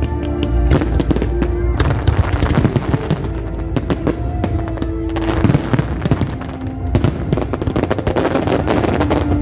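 Fireworks display going off in rapid, dense bangs and crackles, with music playing alongside.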